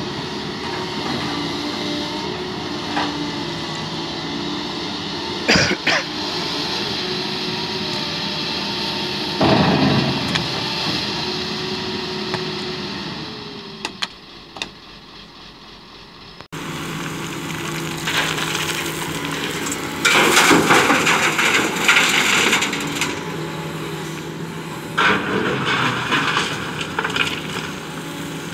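Doosan crawler excavator's diesel engine running steadily under load, with sand and gravel rushing and clattering as the bucket digs and dumps into a steel tipper body. There is a sharp knock about six seconds in, a loud pour about ten seconds in, and longer spells of gravel noise in the second half.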